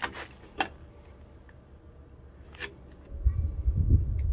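Carpenter's pencil scratching marking lines onto a timber beam along a speed square, three short strokes. A louder low rumble on the microphone takes over near the end.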